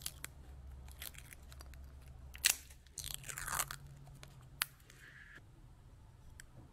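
Protective film being peeled off a clear plastic lure lip close to the microphone: faint crackling and crinkling with scattered sharp plastic clicks, the loudest click about two and a half seconds in and a crinkly stretch just after three seconds.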